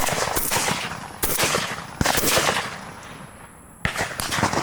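Four shotgun shots fired at passing doves, each a sharp blast that trails off over about a second; the first and third are the loudest.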